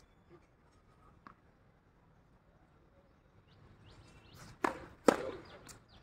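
Tennis serve: two sharp hits of a tennis ball about half a second apart near the end, the first as the racket strikes the tossed ball.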